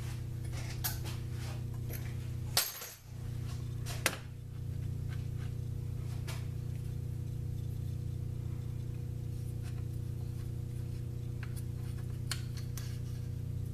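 Light metallic clicks and taps of a dial indicator and its mount being positioned against a part in a lathe chuck, the two sharpest about three and four seconds in, over a steady low electrical hum.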